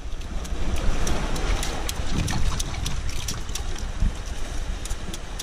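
Wind buffeting the microphone over the wash of surf on rocks, a steady rumbling hiss, with small sharp clicks scattered through it.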